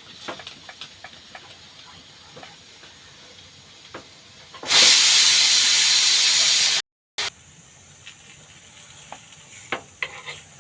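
Hot oiled appe pan giving a loud, steady hiss for about two seconds, cut off abruptly, amid faint scattered clicks and taps of cooking utensils.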